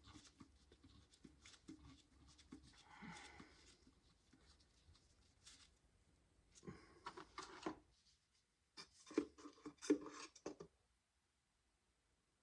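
Faint rubbing and scraping of small metal parts being handled, then two short runs of sharp metallic clicks, as oiled head studs are worked into an engine block.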